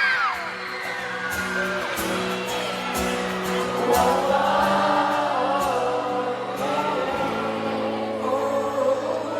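Live pop band playing with sung vocals, held low notes and a few drum hits. High-pitched fan screams die away in the first half-second.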